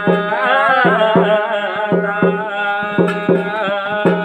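Garhwali jagar music: a wavering sung melody over a steady held drone, with regular drum strokes about two to three a second.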